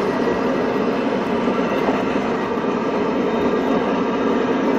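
Model train passenger cars rolling along the layout track, their wheels making a steady, even rumble on the rails.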